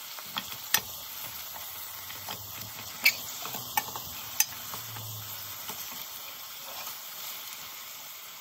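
Lamb pieces sizzling as they brown in hot oil in a steel pot, while a wooden spatula turns them, knocking sharply against the pot a few times.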